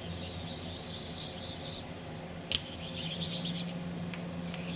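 Hard metal parts clinking against each other. A sharp clink about two and a half seconds in is followed by a high ringing that lasts about a second, and two lighter clicks with shorter rings come near the end. A ring already sounding at the start fades out, all over a low steady hum.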